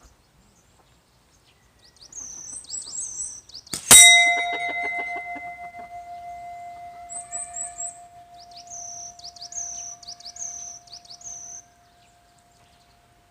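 A slingshot shot strikes a metal bell about four seconds in with a sharp clang, and the bell keeps ringing with a steady tone to the end. Small birds chirp in quick repeated phrases from about two seconds in until near the end.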